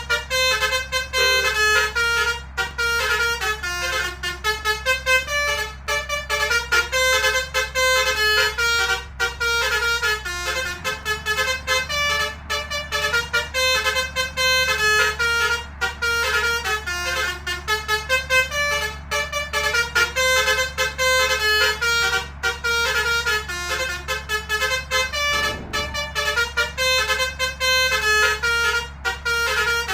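Basuri 'telolet' multi-tone musical horn playing a fast, continuous melody of short horn notes, with a steady low hum underneath.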